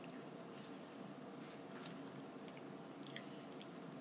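Faint chewing and mouth sounds from a girl eating a tamarind pulp candy, with a few small clicks over a steady low room hum.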